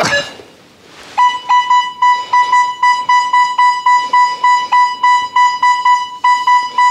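Nokta Makro Legend metal detector sounding a high target tone, one steady pitch that swells and fades about three times a second as the coil sweeps over a small silver George V threepence, starting about a second in. The high, repeatable tone with a target ID of 44 marks a silver coin worth digging.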